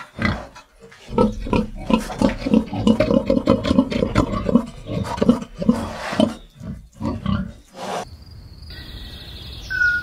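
A pig grunting many times in quick succession as it feeds with its snout in the grass. The grunting stops about eight seconds in, leaving quiet outdoor background with a bird chirping near the end.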